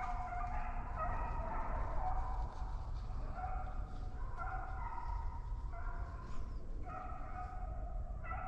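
Several deer hounds baying on a track, with long drawn-out calls at different pitches overlapping one another, over a steady low rumble.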